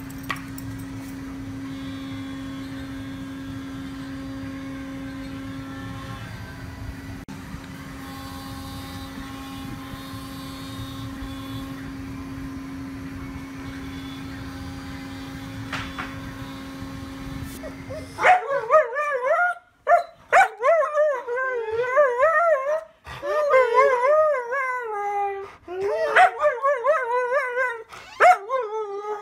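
A steady low hum for about the first eighteen seconds, then a Siberian husky howls and yowls in loud, wavering calls one after another.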